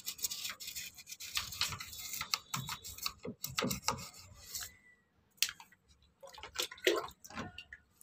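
Soapy toothbrush scrubbing the plastic drain-filter housing of an IFB front-load washing machine, a run of quick scraping brush strokes. There is a pause of about a second a little past halfway, then more strokes.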